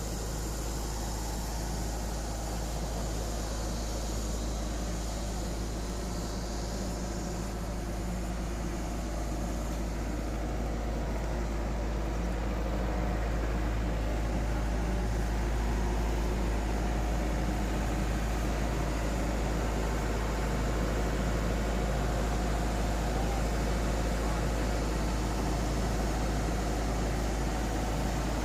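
Excavator's diesel engine running steadily, getting a little louder about halfway through.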